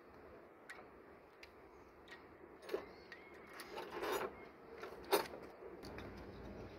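Faint clicks and rustling of an engine's injector wiring harness being handled, its wires pushed into place and small plastic connectors fitted onto the unit injectors, with one sharper click about five seconds in.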